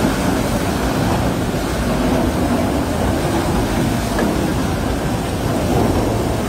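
Tunnel boring machine cutterhead grinding through the last of the rock face at breakthrough: a steady, heavy rumble with a hiss of water spray.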